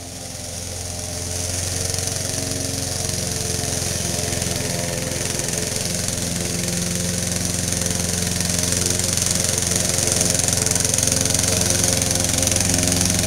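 Lawn mower engine running steadily, growing louder over the first two seconds and then holding an even pitch.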